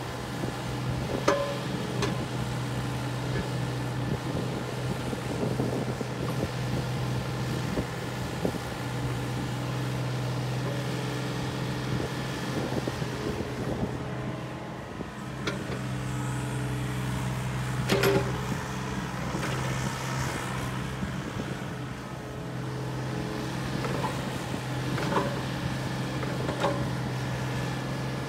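Takeuchi TB235 mini excavator's diesel engine running steadily under hydraulic load as the boom and bucket are raised and lowered. Scattered sharp clanks come from the arm linkage, the loudest about halfway through.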